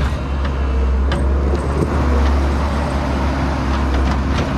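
Skid steer engine running steadily while the machine drives through the snow, with a few brief knocks.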